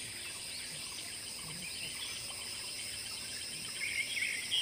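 Insects trilling steadily in several high, unbroken tones, with short bird chirps scattered through. The chirps are most frequent about four seconds in.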